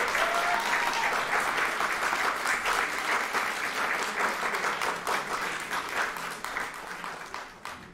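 Audience applauding, many hands clapping at once; the applause thins out over the last couple of seconds and then cuts off abruptly.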